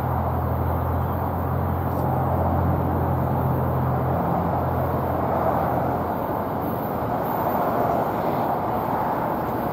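Freight train of coal cars rolling past, a steady noise of steel wheels on the rails. Under it a low engine drone fades out about six seconds in.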